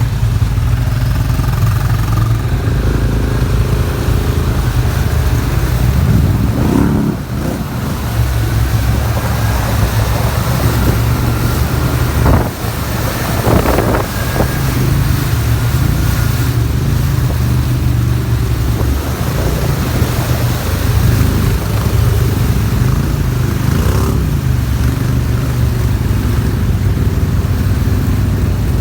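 ATV engine running continuously under load, its revs rising and falling a few times.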